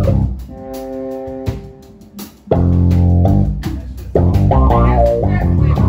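Live band playing electric guitars, bass and drums. A held guitar chord rings over a quieter stretch, then the full band comes back in loud about two and a half seconds in.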